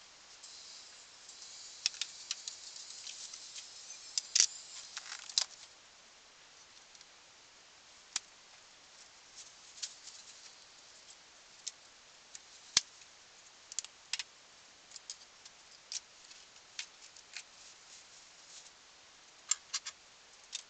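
Light clicks and knocks of small household objects being handled and set down while tidying up, with rustling in the first few seconds. The sharpest knocks come about four and thirteen seconds in.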